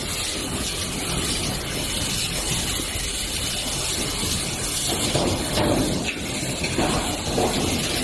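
Steady factory-floor noise, a loud even hiss like blowing air or machinery, with irregular rumbling swells over the second half.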